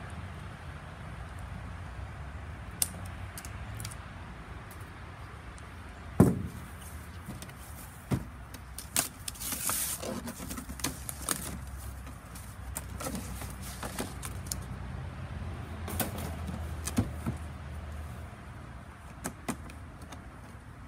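Packaging being handled while new nail guns are unboxed: scattered clicks and taps, a sharp knock about six seconds in, and a short burst of paper or plastic rustling around ten seconds in.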